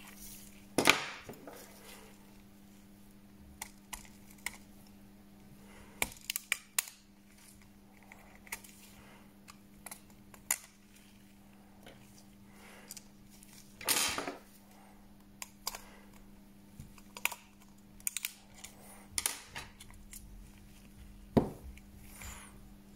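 Irregular small clicks, taps and a few short scrapes of hand tools and smartphone parts being worked during a screen replacement, over a steady electrical hum.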